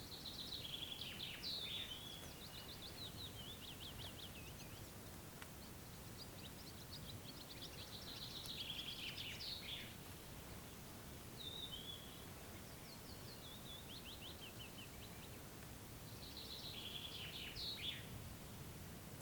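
A songbird singing a repeated phrase, four times: each is a quick run of high notes lasting a few seconds, with a faint low outdoor rumble underneath.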